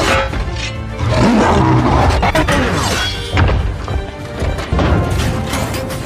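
Film soundtrack mix: a dramatic score runs throughout, with several heavy impacts and crashes of robot-battle sound effects over it.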